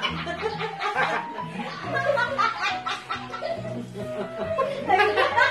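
Background music with held bass notes, over several people laughing.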